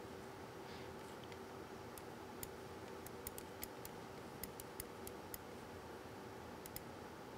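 Faint, irregular clicking of a computer mouse and its scroll wheel, over a faint steady hum.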